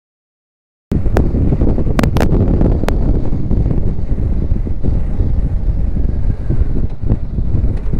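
Silence, then about a second in, loud wind buffeting on the microphone of a camera on a BMW R1250GSA motorcycle while it rides on the highway, mixed with the bike's riding noise. A few sharp pops come in the following two seconds.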